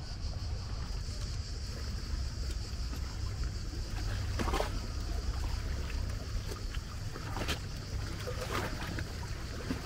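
Outdoor ambience: low wind rumble on the microphone under a steady high hiss, with a few brief, faint sounds around the middle.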